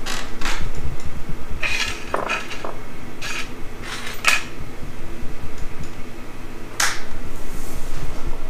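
Small metal parts and hand tools clinking and clattering on a metal worktable as they are picked up and set down, a handful of separate clinks a second or more apart. A steady low hum runs under them.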